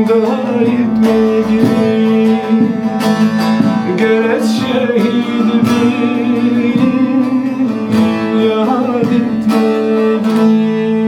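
Kurdish folk song's closing instrumental passage: plucked string instruments picking out a melody over steady held drone notes.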